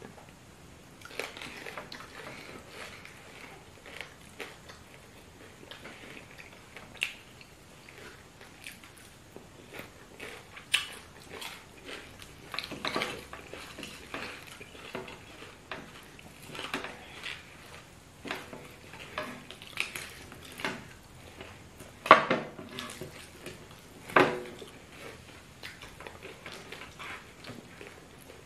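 Eating by hand: irregular soft smacks and chewing sounds, with fingers and food knocking lightly on ceramic plates over banku and fried fish. Two louder sharp sounds come about two seconds apart near the end.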